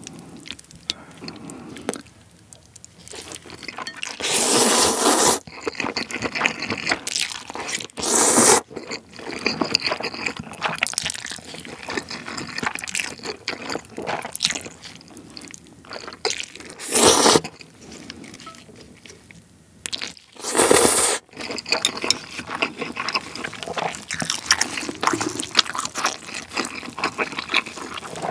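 Close-miked slurping and chewing of spicy jjolmyeon noodles: four loud slurps spread through, with steady wet chewing and small mouth clicks between them.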